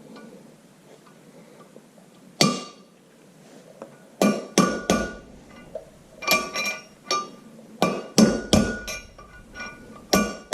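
Hammer blows on steel, each ringing: the old bearing race used as a driver to seat a new tapered roller bearing cup in a tractor front wheel hub. One strike about two seconds in, then a steady run of strikes, roughly two or three a second, from about four seconds in.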